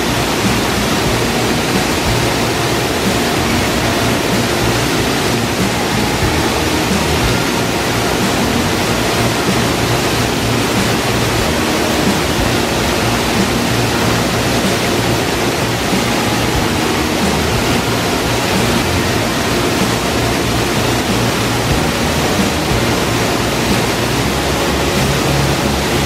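Steady loud rush of water from a small waterfall on a mountain stream running high after heavy water.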